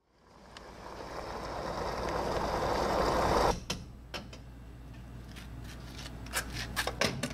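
Fuel rushing from a gas pump nozzle into a vehicle's tank, growing louder and cutting off suddenly about three and a half seconds in. Then a run of sharp clicks and clacks as the nozzle is handled and hung back on the pump, over a low steady hum.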